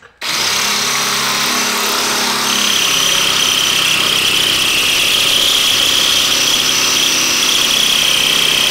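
Electric drill running steadily under load, drilling off the head of a seized steel door-hinge bolt. A high steady whine comes in about two and a half seconds in.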